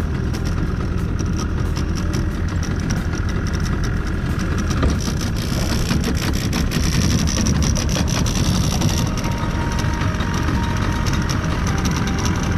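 A small fishing boat's engine running steadily as the boat travels under way, with a constant, uneven rushing noise over it.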